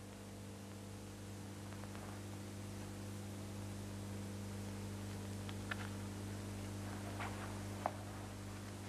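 Steady electrical mains hum with a light hiss, broken by a few faint clicks in the second half.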